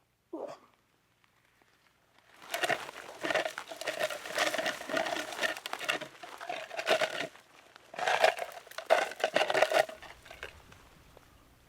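Brush and branches being raked and scraped in two long, scratchy bouts, the sound of a rutting bull moose raking or of a hunter imitating it. A brief falling sound comes just before.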